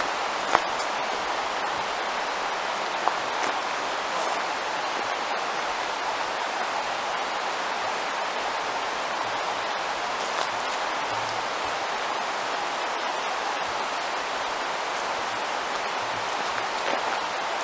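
Steady rush of falling water from a waterfall, an even hiss with a couple of faint knocks about half a second and three seconds in.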